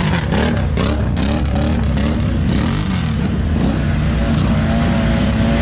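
ATV engine revving up and down over and over as the throttle is worked, then held at high revs near the end. A few short clattering knocks in the first couple of seconds.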